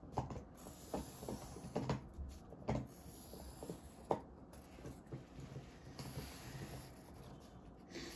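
Pencil drawing long diagonal strokes on sketchbook paper: a soft scratching, with a few short knocks scattered through.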